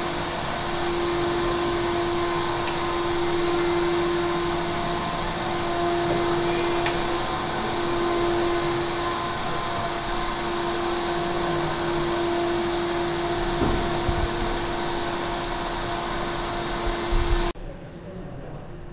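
Steady hum of ventilation fans or air-handling machinery, a constant whirr with a clear steady tone running through it. It cuts off suddenly near the end, leaving a much quieter room sound.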